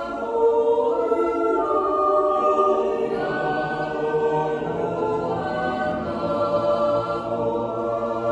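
Swiss yodel choir of men and women singing unaccompanied in sustained chords; a low bass part comes in about three seconds in.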